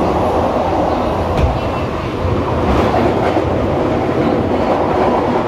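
London Underground Victoria line 2009 Stock train running through a tunnel, heard from inside the carriage: a loud, steady rumble of wheels on rail with a few clicks.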